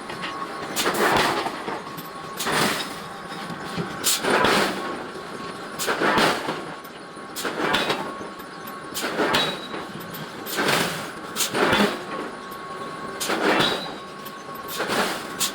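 Forging of large iron blocks: a heavy strike on the hot metal about every one and a half seconds, ten times in all, over a faint steady machine hum.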